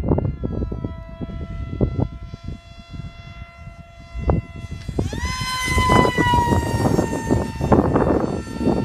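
Small electric RC pusher-prop plane (3000 kv brushless motor, 5x5 prop) whining through the air. The whine fades, then comes back loud and high about five seconds in and slowly falls in pitch as the plane passes. Wind gusts rumble on the microphone throughout.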